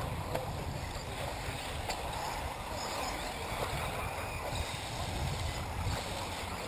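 Wind buffeting the microphone: a steady, uneven low rumble with a hiss over it.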